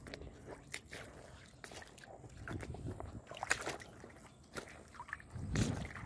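Shallow stream running over pebbles and stones: a steady wash of water with irregular small splashes and trickles, a few of them louder.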